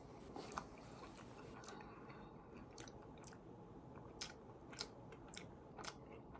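A person chewing close to the microphone: faint, soft mouth clicks and smacks, coming about every half second in the second half.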